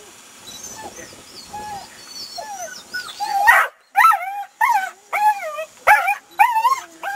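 A dog whining and yipping: faint high whines at first, then from about three seconds in a rapid series of loud, arching whines and yelps, several a second.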